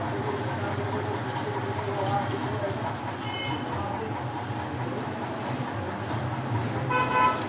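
Toothbrush scrubbing a phone circuit board with petrol, in rapid scratchy strokes during two spells in the first half, cleaning the freshly desoldered microphone pads. A vehicle horn toots briefly near the end.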